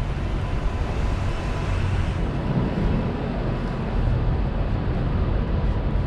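Busy city street ambience: a steady low rumble of traffic, with wind buffeting the microphone.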